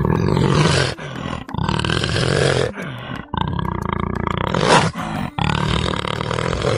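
Leopard giving a series of four long, rough calls, each about one to two seconds long, with short breaks between them.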